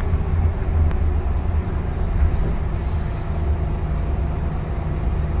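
Scania K280UB city bus heard from inside the passenger saloon while driving: its nine-litre five-cylinder diesel gives a steady low drone under road noise. A faint hiss joins about halfway through.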